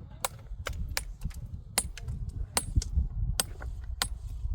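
A series of sharp knocks or taps with a brief metallic ring, about six strong strikes at an uneven pace with fainter ticks between, over a low rumble.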